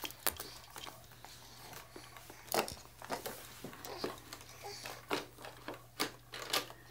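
Irregular sharp clicks and clacks of plastic toys on a baby activity centre being handled, about a dozen spread over several seconds, the loudest about two and a half seconds in, with a faint steady hum underneath.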